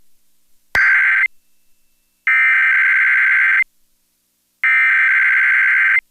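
Emergency Alert System SAME header: three bursts of screeching digital data tones, each just over a second long with about a second of silence between, the first one cut short after a click. The bursts open a Required Weekly Test.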